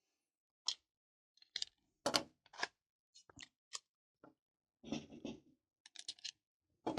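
Irregular sharp clicks and clacks from handling pistol magazines and cartridges, with a short rattling run about five seconds in.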